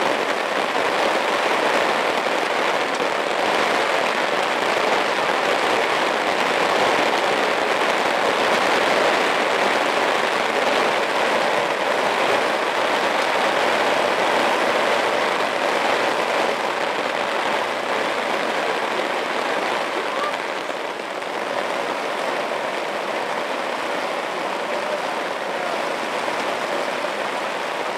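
Steady rain falling, an even hiss of drops hitting the ground and nearby surfaces.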